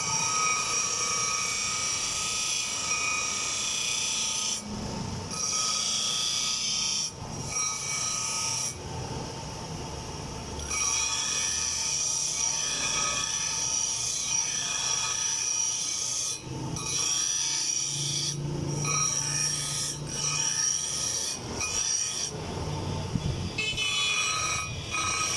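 Steel knife blade being ground with a power grinder: a steady high-pitched whine with a rasping edge, lifting off the metal briefly several times.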